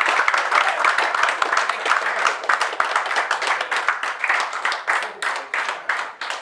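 Applause from a roomful of people, with voices mixed in at first; the clapping thins to scattered claps and dies away near the end.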